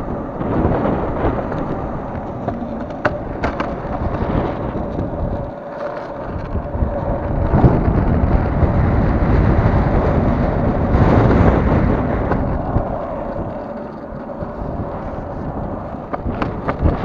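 Longboard wheels rolling over asphalt, mixed with wind buffeting the microphone as the sail-powered board moves; the rumble swells louder through the middle stretch. A few sharp clicks cut through it.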